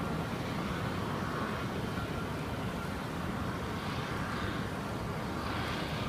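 Steady blizzard wind rumbling on the microphone, with a faint engine hum in the distance.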